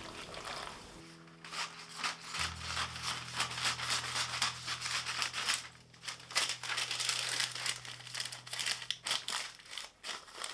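Sheet of baking paper crinkling and rustling in quick irregular crackles as it is handled, laid over a metal baking tin and pressed down into it, over soft background music.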